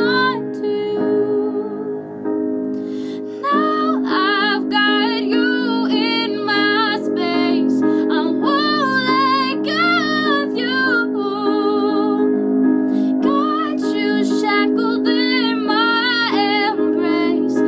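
A woman singing an acoustic ballad cover over sustained instrumental accompaniment, with vibrato on held notes. The voice stops shortly after the start while the accompaniment carries on, and comes back about three and a half seconds in.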